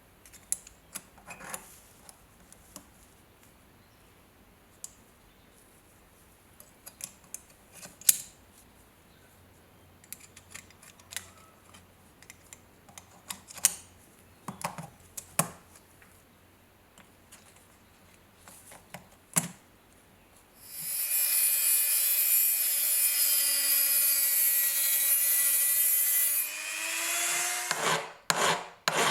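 Scattered clicks and taps of tools and parts being handled, then a small power tool runs steadily for about six seconds and winds down. Near the end, rhythmic back-and-forth rubbing strokes begin, about three a second, as metal is worked by hand.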